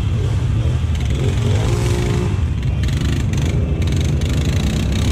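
ATV engines running with a steady low rumble, one revving as a four-wheeler climbs out of a deep mud rut.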